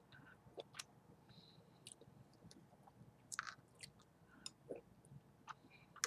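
A person chewing food with the mouth close to the microphone: faint, scattered wet mouth clicks and smacks, a little louder for a moment just past midway.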